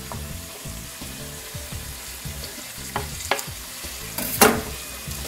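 Sliced onions sizzling in an aluminium pot while minced garlic is scraped in from a wooden cutting board and stirred with a wooden spoon. A few sharp wooden knocks against the pot, the loudest about four and a half seconds in.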